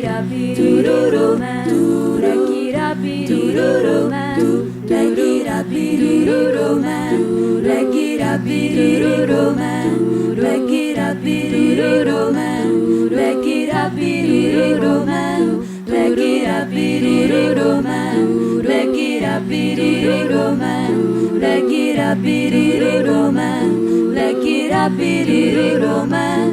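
A cappella vocal group singing in close harmony. Moving upper voices sit over a low bass note that is held and re-sung about every two and a half seconds.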